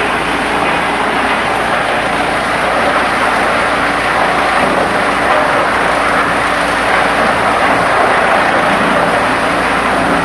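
Large-capacity industrial wood chipper running: a loud, steady machine noise with a low hum underneath.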